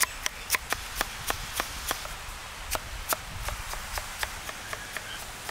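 Chef's knife slicing through fresh strawberries and striking a wooden log chopping block, a quick series of short knocks about three a second.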